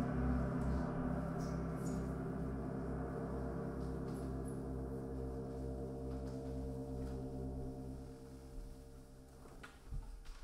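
Electronic drone music: many sustained ringing tones layered over a low, evenly pulsing throb, fading away over the last couple of seconds, with a few faint knocks near the end.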